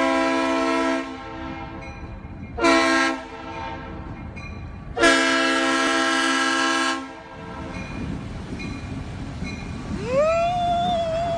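A Norfolk Southern diesel locomotive's multi-chime air horn sounds three blasts, long, short, long, as part of its grade-crossing warning, over the low rumble of the train. Near the end a long, high, rising cry starts up and holds.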